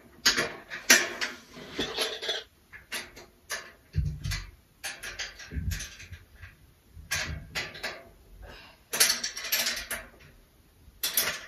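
Irregular metal clinks, clicks and knocks from a steel IKEA Råskog trolley frame being handled as a caster wheel is worked into a leg, with a few dull thumps.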